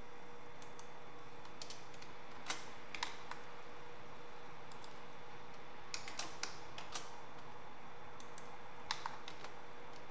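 Scattered clicks of a computer keyboard and mouse, in small clusters a few seconds apart, over a faint steady hum.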